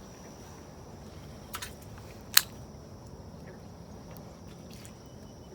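Steady outdoor background hiss with a faint high steady tone, broken by a few sharp clicks about a second and a half in and a louder one after two and a half seconds.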